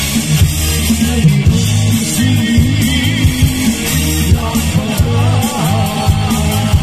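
Live band playing through a PA: electric bass, drum kit and guitar in a steady rock beat, with a man's singing voice coming in about four seconds in.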